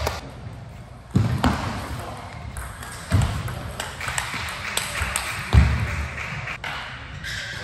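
Table tennis ball clicking off paddles and the table during play, with a few duller thuds in among the clicks, over background voices.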